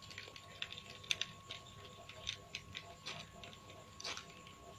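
Faint, irregular small clicks and ticks, a few to several a second, over a thin steady high tone.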